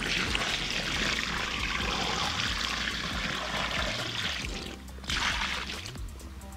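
Water poured from a container onto a carp lying on a wet unhooking mat, splashing steadily for about four and a half seconds, then a shorter second pour about five seconds in.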